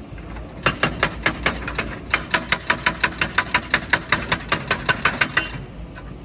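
Rapid, even series of sharp hammering knocks, about six a second, starting just under a second in and stopping shortly before the end.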